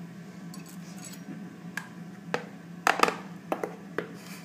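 A handful of sharp knocks and clinks, starting a little under two seconds in, as the blender jug is tipped over a bowl and knocked to work out thick frozen-banana ice cream. A low steady hum runs underneath.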